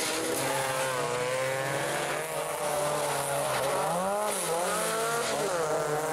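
Several rear-wheel-drive folkrace cars racing together, their engines revving at overlapping pitches that rise and fall as the drivers accelerate and lift. About four seconds in there is a short dip in engine pitch, then a climb back up.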